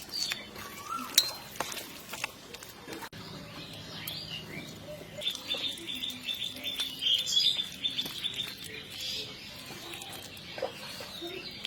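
Birds chirping, with a rapid run of high repeated chirps about halfway through, over a few scattered clicks and knocks.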